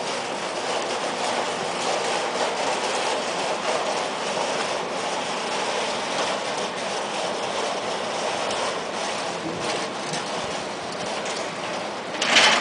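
Steel roll-up security gate rattling steadily as its slats roll down, with a loud clang near the end as it shuts.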